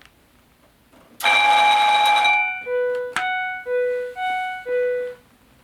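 An electric fire alarm bell rings loudly for about a second and then cuts off abruptly. The bell stops because the emergency broadcast is linked to it and pauses the bell for the announcement. An emergency-broadcast attention chime follows: five clear tones alternating low and high, with a brief click between the second and third.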